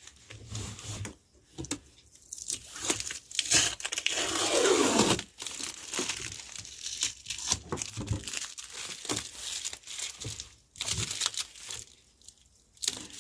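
Adhesive tape being peeled and torn off a home theatre unit's plastic casing: irregular crackling and ripping, with one longer rip about four seconds in.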